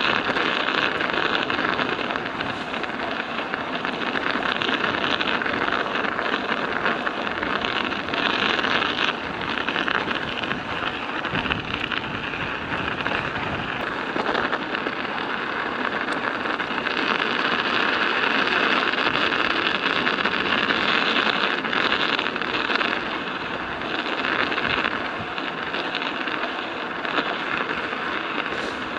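Studded bicycle tyres rolling over ice, a steady dense clatter and crunch of the metal studs on the frozen road surface, swelling a little louder in a couple of stretches.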